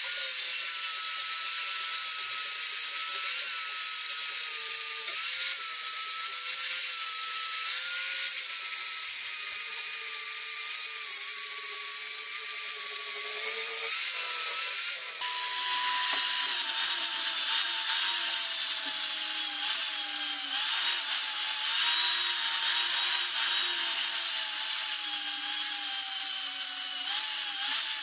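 Angle grinder with an 80-grit sanding disc running against a steel axe head, grinding off rust: a steady high whine over a grinding hiss, its pitch wavering as the disc is pressed on. About halfway through the whine drops a little in pitch and grows slightly louder.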